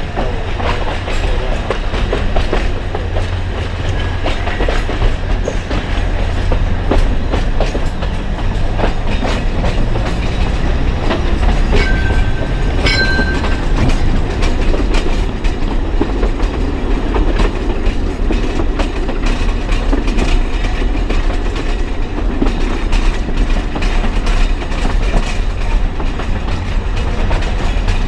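Narrow-gauge Alishan Forest Railway train running, heard from on board: a steady low rumble with the wheels clicking over the rail joints. A short high-pitched squeal sounds about twelve seconds in.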